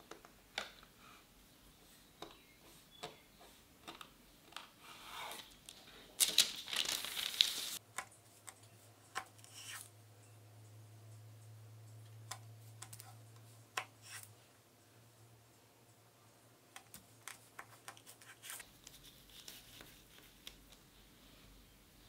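Chef's knife cutting a slab of firm, chilled shortbread dough on parchment paper: soft scrapes and taps as the blade presses through and meets the board, with a louder stretch of scraping and paper rustle about six seconds in that lasts about a second and a half.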